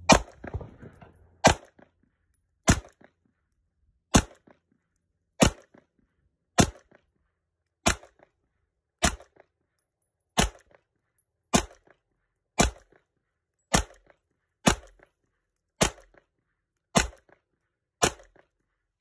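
Taurus PT92 9mm pistol firing sixteen single shots in slow, steady succession, about one shot every 1.2 seconds.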